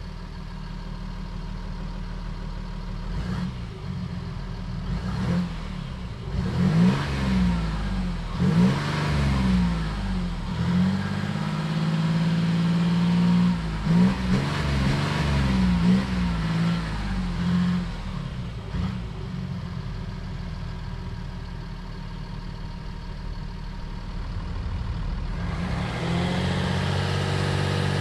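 The 3.0-litre turbo-diesel V6 of a 2023 Ford Ranger Wildtrak running steadily, then accelerating hard through the gears of its 10-speed automatic, its pitch climbing and dropping back at each upshift several times over. It then settles to a steadier, quieter note, and a louder rushing noise rises near the end.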